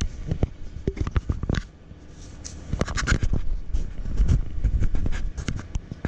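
Irregular clicks, knocks and scrapes of handling noise as hands and camera brush against the console's metal panels and cables, over a low steady rumble.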